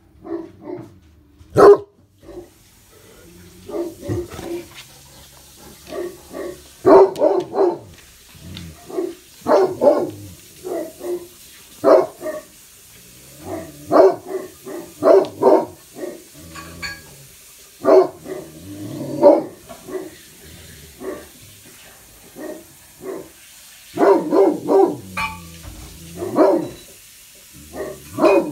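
Great Pyrenees barking at a window on guard duty: short, deep woofs in irregular runs, several in quick succession at a time, with brief pauses between runs. This is alert, territorial barking at something outside.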